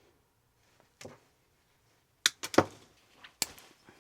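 A few short, sharp clicks and taps of small plastic electrical connector parts being handled: one soft tap, then a quick group of three clicks, and two more near the end.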